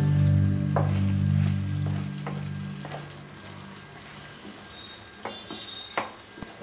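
Chicken pieces sizzling in a wok as they are stirred with a wooden spatula, which scrapes and knocks against the pan a handful of times.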